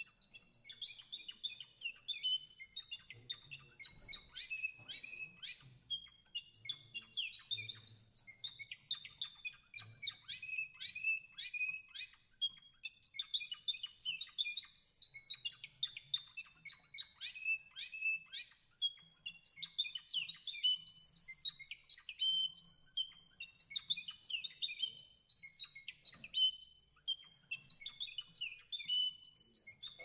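Small songbirds singing continuously: a dense, rapid stream of short chirps, twitters and trills.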